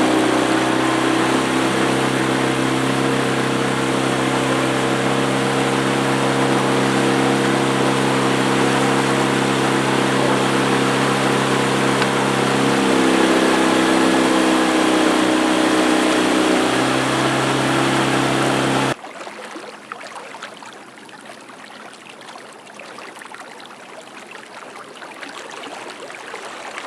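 Boat's outboard motor running steadily under way, its pitch shifting for a few seconds past the middle, then cutting off abruptly about two-thirds of the way through. Quieter moving river water follows.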